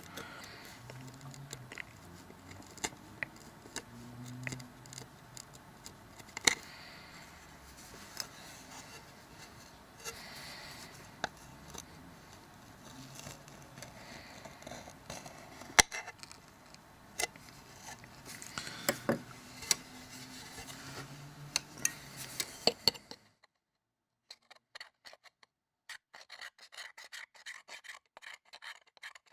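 A small hand tool scraping and picking at a Samsung Galaxy S3's metal screen frame, with scattered sharp clicks, clearing off old adhesive and glass splinters. After a sudden drop near the end, quick regular scraping strokes.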